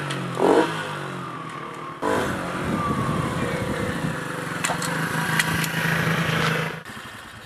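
Minibike's small Honda-clone engine running as it is ridden up and past, revving up and down, with a falling pitch a few seconds in and dropping away near the end. It runs well again after a carburetor cleaning: a quiet little bike.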